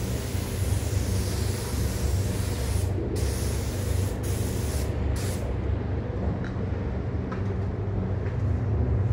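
Compressed-air spray gun hissing as glass coating is sprayed onto a car roof. The hiss breaks off briefly a few times and stops about halfway through, over the steady low rumble of the paint booth's ventilation.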